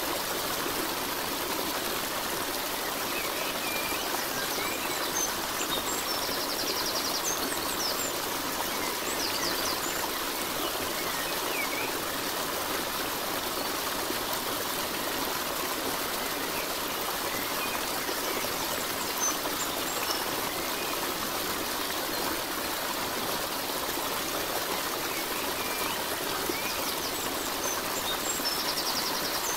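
Steady running water, like a stream, with a few brief faint high chirps about seven seconds in and again near the end.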